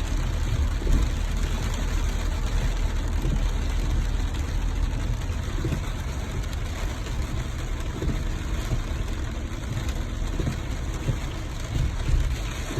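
Steady rain hiss over the low rumble of a car on a wet road.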